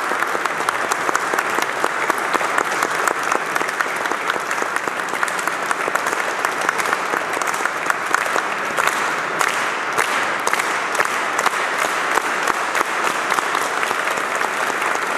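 Sustained applause from many people clapping at once, including the choir singers and their conductor, at a steady level throughout.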